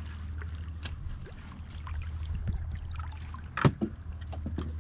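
Hooked blackfish (tautog) splashing at the surface beside a boat as it is drawn in on a jig, with small splashes and clicks over a steady low hum. One sharp knock about three-quarters of the way through is the loudest sound.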